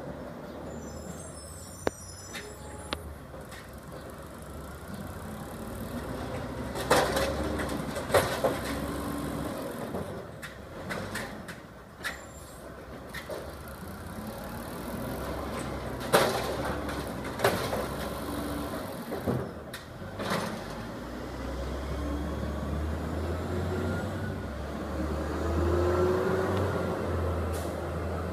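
Garbage truck collecting yard waste: its diesel engine runs and revs, with several sharp metal bangs and clanks as carts are dumped, air-brake hisses, and a rising whine near the end as the engine and hydraulics work harder.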